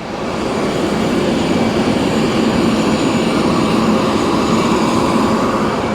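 Steady jet turbine noise on an airport apron, swelling over the first second and then holding level, with a faint whine on top.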